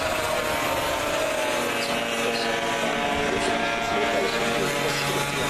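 Several classic racing motorcycle engines running hard through a corner, their pitch dropping and rising as the bikes brake and accelerate.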